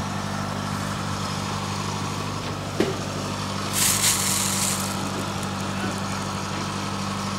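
A steady low hum of an engine running at idle, with a sharp click about three seconds in and a short burst of hiss about a second later.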